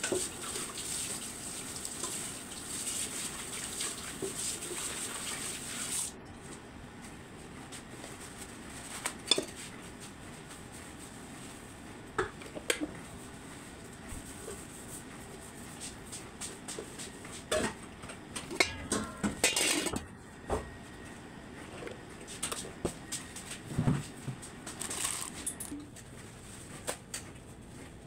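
Kitchen handling sounds: scattered light clicks and knocks of utensils, a plastic tub and an electric sandwich maker's plates as sandwich bread is laid in, over a steady hiss that stops abruptly about six seconds in.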